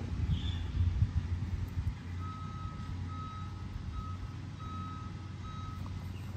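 Repeated electronic beeping at one steady pitch, five short beeps about a second apart starting a couple of seconds in, over a steady low hum. There are a few dull low thumps at the start.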